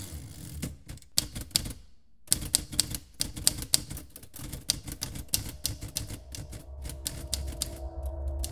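Typewriter keys clacking in quick, irregular strokes, with a short pause about two seconds in. A low, steady droning music tone comes in near the end.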